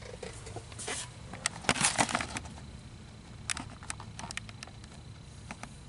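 Handling noise: rustling and sharp clicks as the handheld camera and hand brush against parts in the engine bay, loudest about two seconds in, with a few more clicks around four seconds in.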